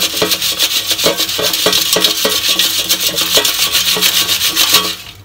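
Crisp air-fried potato slices rattling and rustling in an air fryer basket as it is shaken, in quick repeated jolts, stopping near the end. This is the mid-cook shake the fryer prompts for.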